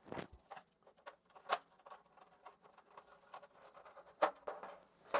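Small clicks and knocks of a sheet-metal junction-box cover being fitted onto an electric water heater and screwed down with a screwdriver, with sharper knocks about a second and a half in and about four seconds in.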